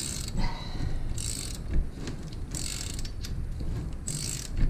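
Ratchet wrench clicking in four short back-and-forth strokes, about one every second and a half, as it winds a coil spring compressor down on a Miata strut spring.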